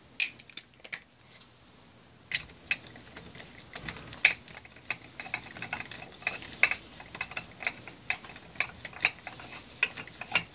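Socket ratchet clicking as the cylinder head nuts on a Honda Rebel 250 engine are run down, snugged before final torquing. A few sharp metal clicks come first, then after a short pause a long run of quick, steady ratchet clicks.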